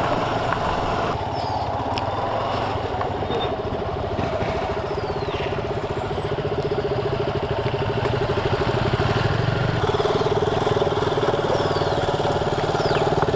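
Yamaha R15 V2.0's single-cylinder four-stroke engine running at steady low revs as the motorcycle rides slowly over a rough dirt track. Its note gets a little louder about ten seconds in.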